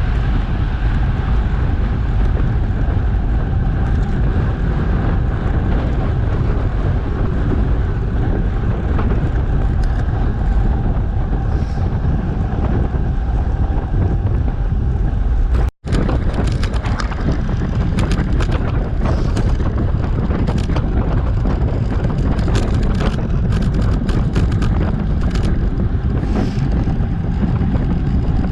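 Wind rushing over an action camera's microphone on a moving bicycle, a steady loud rumble. It cuts out abruptly about halfway through, and afterwards many quick clicks and rattles sound over the wind.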